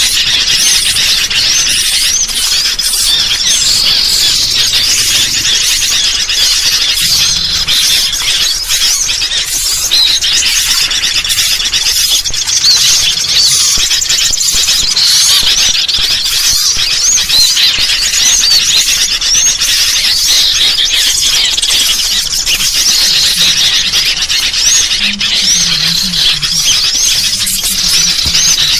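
A dense, continuous chorus of small birds chirping and squeaking over one another, with noisy sooty-headed bulbul calls mixed in: a bird-lure recording meant to draw in small birds.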